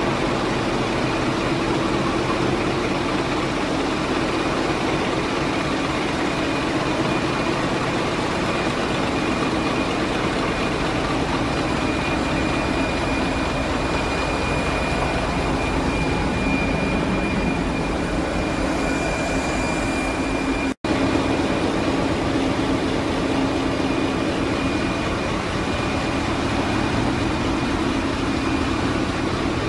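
Ship's engine room with Wärtsilä 8L50DF inline eight-cylinder dual-fuel generating engines running: a steady, dense machinery drone with a low hum and a high whine held over it. The sound cuts out for an instant about two-thirds through.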